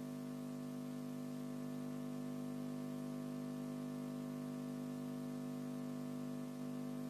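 Steady electrical hum of an idle PA sound system, made of several low tones held level.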